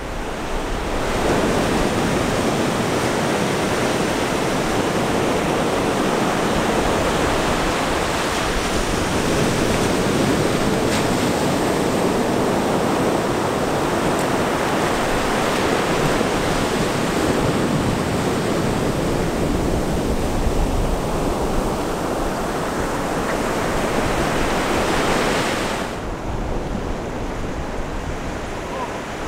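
Ocean surf breaking and washing up the beach, a steady rush of water with wind buffeting the microphone. About 26 seconds in it turns to a softer, duller rush.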